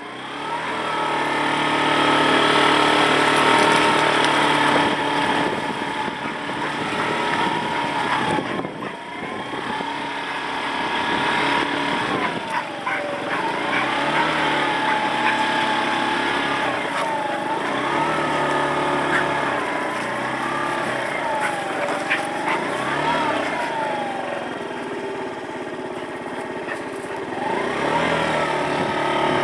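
Small motorbike engine running at low speed, picking up revs in the first couple of seconds, then its pitch rising and falling several times as the throttle opens and closes.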